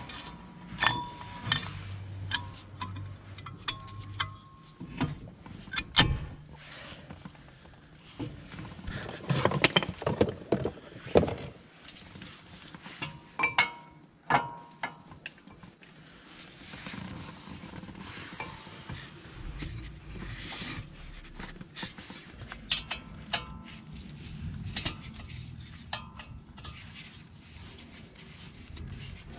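Irregular metallic clinks, taps and knocks as new ceramic brake pads are fitted into a cast-iron brake caliper and the caliper is worked back over a drilled brake disc. Some of the knocks ring briefly like metal on metal.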